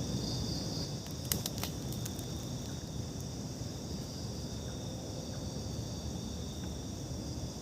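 Night insects trilling steadily in a continuous high chorus, over a low rumble, with a few sharp clicks about a second and a half in.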